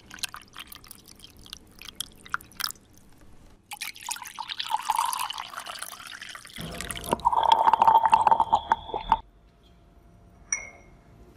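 Plastic syringe drawing brown liquid up from a glass beaker: small crackling drips and bubbles, then slurping and gurgling that grows louder, with a steady whistling tone for about two seconds that cuts off sharply. Near the end comes a single glass clink with a short ring.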